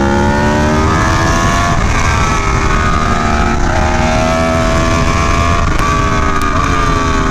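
Aprilia Tuono V4 1100 Factory's V4 engine through an SC Project CR-T exhaust, running hard on track, its pitch climbing and dipping several times with a few brief sharp cracks. Heavy wind rush sits under the engine note.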